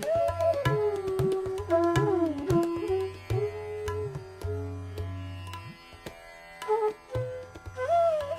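Hindustani classical music: bansuri flute playing raga Bhopali in a gliding, bending melody over a drone, with tabla strokes beneath.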